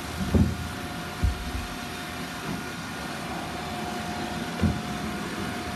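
Roomba robot vacuum running with a steady motor whine and hiss, with a few low thumps.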